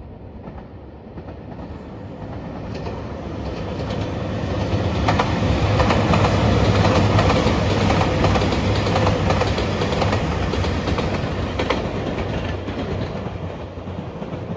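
Yellow Anpanman-liveried Nanpu limited express diesel train passing: its engines and the wheels clattering over rail joints swell to a peak about halfway through, then fade as it draws away.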